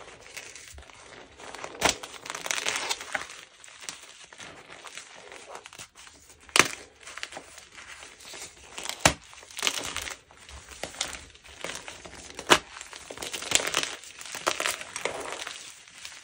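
Gym chalk and cornstarch being crushed and crumbled: an uneven run of powdery crunches with a few sharp snaps, the loudest about six and a half and twelve and a half seconds in.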